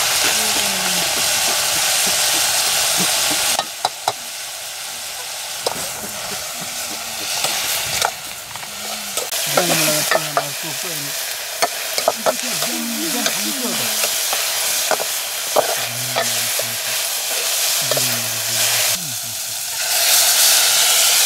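Bamboo shoots sizzling in a metal pot over a wood fire while a steel ladle stirs them, clicking and scraping against the pot. The sizzle is loud for the first few seconds, softer through the middle, and loud again near the end as water is poured into the hot pot.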